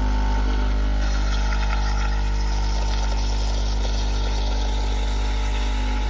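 Espresso machine pump running with a steady low hum while a shot is pulled through a bottomless portafilter fitted with a pressurized basket.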